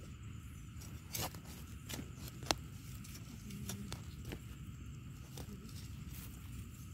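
A hand scraping and rustling through dry leaves, twigs and loose soil around termite mushrooms, with scattered sharp clicks, the sharpest about two and a half seconds in.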